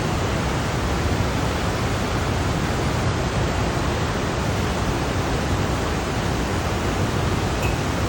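Ocean waves heard as one steady, even rush of noise, with no separate swells or breakers standing out.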